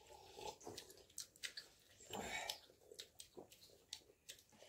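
Faint chewing and eating sounds of a child eating rice by hand, with a few light clicks scattered through.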